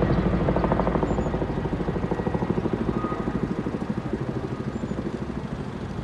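Firefighting helicopter with a water bucket slung beneath it, its rotor beating in a rapid, even pulse that slowly fades.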